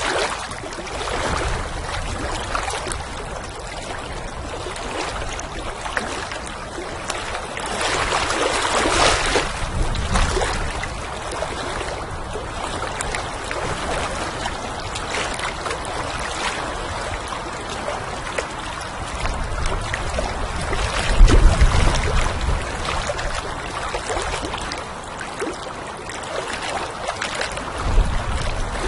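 Water lapping and splashing gently, with small irregular slaps, and wind rumbling across the microphone in gusts, strongest about three quarters of the way through.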